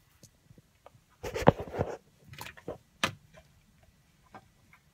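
Handling noise: scattered light clicks and knocks, with a short clattering burst about a second and a half in and a few more knocks soon after.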